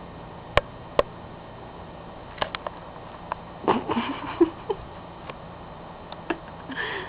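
Scattered handling noises: two sharp clicks near the start, then a series of knocks, clicks and short rustling scrapes, busiest about halfway through, over a steady faint hiss.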